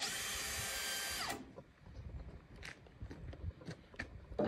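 A small electric motor whirring for just over a second, starting abruptly and then cutting off, like a power drill running. After it come a few faint scattered clicks.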